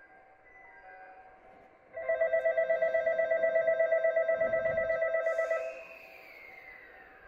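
Electric bell at a railway station ringing with a fast, even rattle for about four seconds, then stopping. A faint falling whine follows near the end.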